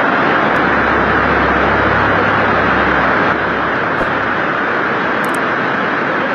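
Fast-flowing floodwater rushing in a loud, steady torrent, with a low rumble under it that drops away about halfway through.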